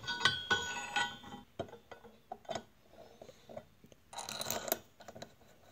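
Steel connecting rod, cap and bolts clinking against a Subaru EJ25 crankshaft as the rod is fitted onto a crank journal by hand for a Plastigauge bearing-clearance check. A few ringing metal clinks, then a run of small clicks and a brief scraping rattle about four seconds in.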